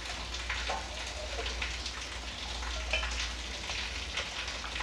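Hands kneading and squeezing a moist, crumbly sattu filling in a stainless-steel bowl: a steady crackly rustle with many small scattered clicks and scrapes against the steel.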